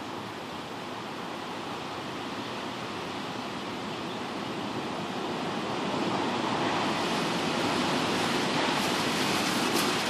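Storm wind from a tornado rushing steadily, growing louder over the last few seconds.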